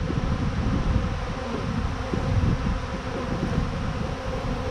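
A swarm of honeybees that has left its hive, many of them flying close around the microphone: a dense, steady buzz.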